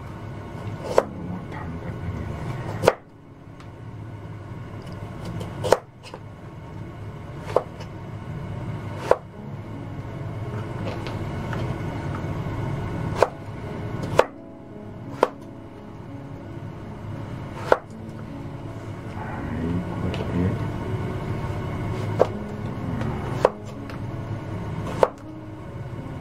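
Kitchen knife cutting a carrot into sticks on a plastic cutting board: about a dozen sharp knocks at uneven intervals as each cut goes through and strikes the board, over a steady low background noise.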